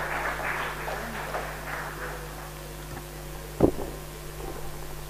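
Room tone of a public-address hall with a steady mains hum; scattered clapping dies away over the first two seconds, and a single dull thump sounds about three and a half seconds in.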